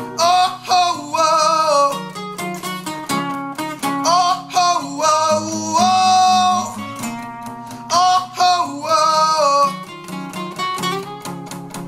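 Two acoustic guitars playing together, strummed and picked, while a man sings long held notes over them; the voice stops near the end, leaving the guitars alone.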